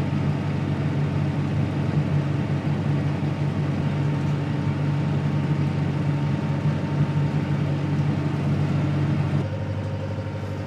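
Engine running steadily with an even hum, dropping to a quieter, lower note about nine and a half seconds in.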